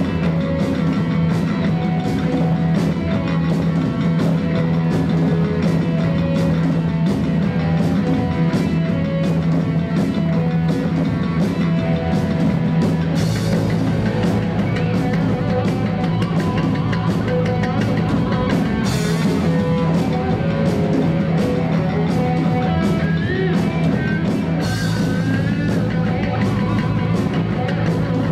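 Live rock band playing: electric guitars over a steady drum-kit beat, with a sustained low bass line.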